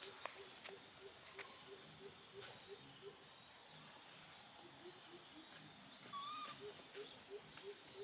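Faint rural ambience with a soft rhythmic chirping at about four pulses a second, and a single short, squeaky call from a baby monkey about six seconds in.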